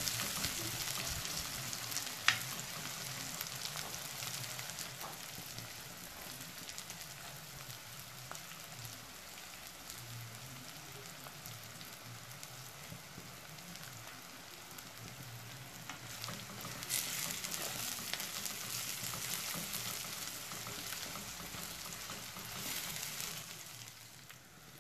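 Sliced onions, green chillies and curry leaves sizzling steadily as they fry in hot oil in a clay pot, with a wooden spoon stirring through them. A single sharp knock about two seconds in.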